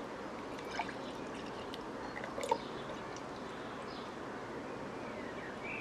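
Homemade elderflower lemonade poured from a bottle through a small mesh strainer into a glass, a steady stream splashing into the liquid, with a couple of faint clicks about a second in and halfway through.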